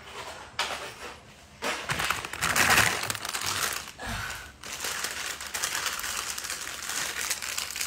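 Plastic packaging crinkling and rustling as new chair parts are handled, starting about a second and a half in, with a brief low knock about four seconds in.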